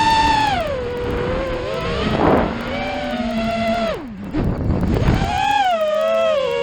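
FPV quadcopter's electric motors whining, the pitch swinging up and down several times as the throttle changes, with bursts of wind noise on the onboard microphone.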